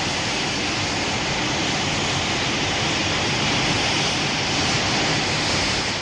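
Film sound effect: a loud, steady rushing blast like a jet engine, starting abruptly and holding even for about six seconds before fading away at the end.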